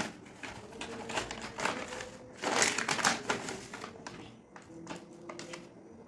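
Plastic detergent-powder packet crinkling as it is handled, a run of short crackles that is loudest about halfway through.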